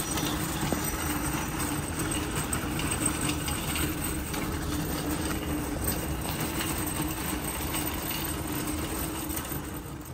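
Metal shopping cart rolling across cracked asphalt, its wheels and wire basket rattling steadily.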